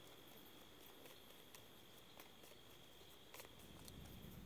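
Faint soft ticks of a tarot deck being shuffled by hand, over a faint steady high tone. A low rumble comes in near the end.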